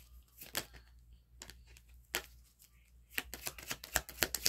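Tarot cards being handled: a few scattered snaps and flicks, then from about three seconds in a quick run of rapid clicks as the deck is shuffled.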